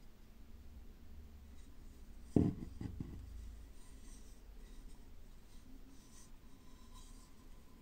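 Hands handling and turning a carved wooden kuksa, fingers rubbing and shifting on the wood. A sharp knock comes about two and a half seconds in, with two lighter taps just after.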